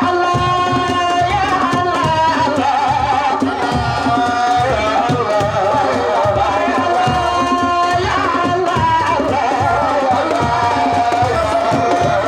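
A man singing a Sufi religious chant (zikr) into a microphone, with long held notes and wavering melismatic ornaments, over steady drum beats.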